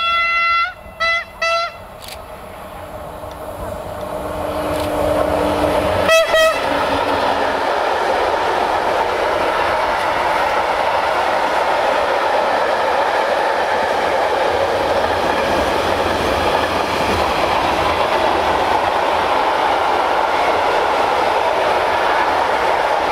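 An OSE class 120 'Hellas Sprinter' electric locomotive sounds its horn: a blast ends just under a second in, two short blasts follow at once, and a short wavering blast comes about six seconds in. The container freight train then passes close by, its wagons rolling over the rails in a steady rumble with clickety-clack.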